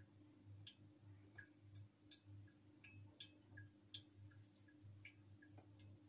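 Near silence: faint, irregular light clicks, a couple each second, over a low steady hum.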